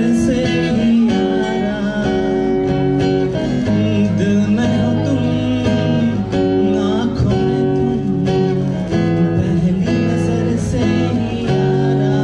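Acoustic guitar played live, strumming a chord progression with the chords changing every second or two.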